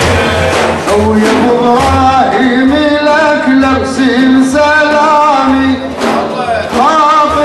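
Male praise singers singing a drawn-out, wavering line of an Arabic madih hymn for the Prophet's birthday over a steady drum beat.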